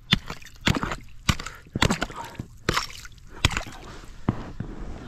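Axe chopping through thin first ice into open water, about seven strikes roughly half a second to a second apart, each smashing the ice and splashing and sloshing the water.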